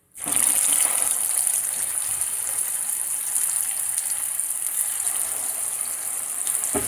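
Hot coconut oil sizzling as pieces of spice-marinated chicken are dropped in to deep-fry: a steady hiss with small crackles that starts suddenly.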